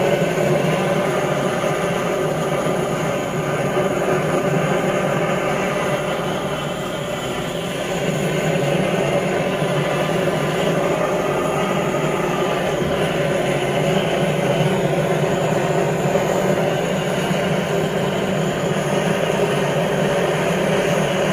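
Handheld butane blowtorch on a gas canister burning steadily: a continuous rushing flame noise as it singes the hair off a buffalo foot, dipping briefly about seven seconds in.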